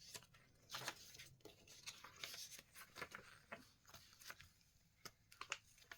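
Faint rustling and light taps of paper journal pages and tags being handled and turned.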